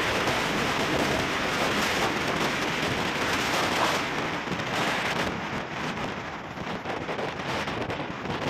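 Wind rushing over the microphone together with road noise from a moving vehicle, a steady hiss that eases a little about halfway through.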